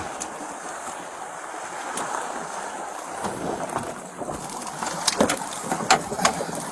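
Wind and waves on open water, with wind buffeting the body camera's microphone. A few sharp knocks come in the last few seconds.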